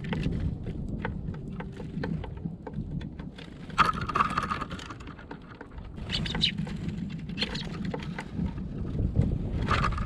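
Small birds (great tits and sparrows) pecking at seed on a plywood feeder tray: a run of quick sharp taps over a low steady rumble, with a few louder, brighter bursts about four seconds and six seconds in.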